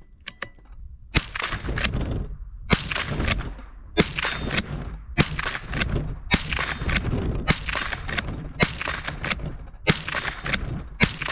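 Marlin 39A .22 LR lever-action rifle firing a quick string of shots, about one a second, as the lever is worked between them. The rounds go off in a row without misfires, after the firing pin and hammer spring were changed and the rifle was warmed up.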